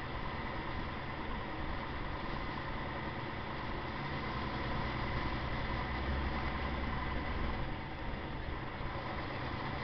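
Truck engine running steadily, heard from inside the cab through a dashcam: a low, even rumble that swells a little in the middle.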